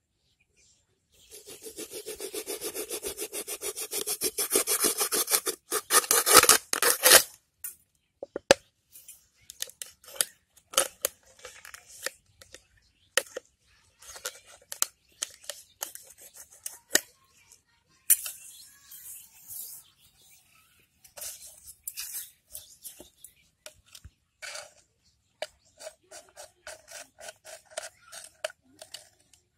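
A blade sawing rapidly back and forth through a thin plastic bottle, growing louder for several seconds. After that come scattered crackles, snips and clicks as the plastic is cut and handled.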